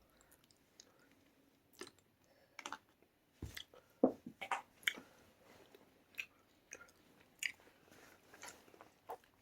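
A person chewing a mouthful of rice and chicken: a dozen or so short, irregular mouth clicks and smacks.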